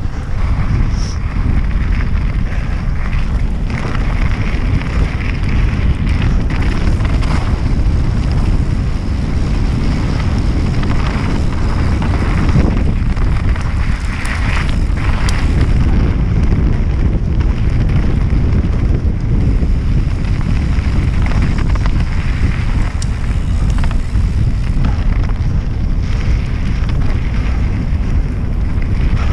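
Wind buffeting the microphone of a helmet camera on a mountain bike riding downhill on a dirt trail. Under the rumble there is tyre noise and scattered clicks and rattles as the bike goes over rough ground.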